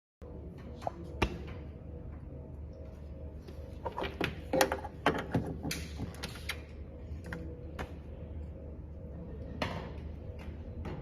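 Scattered clicks and knocks of equipment being handled, thickest around the middle, over a steady electrical hum.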